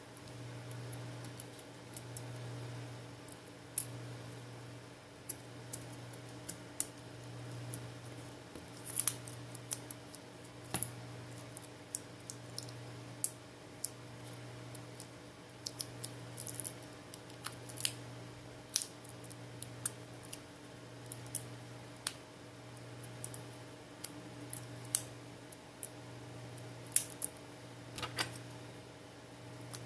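Irregular small clicks and taps of phone parts and small tools being handled during a smartphone reassembly, a few of them sharper, over a steady low electrical hum.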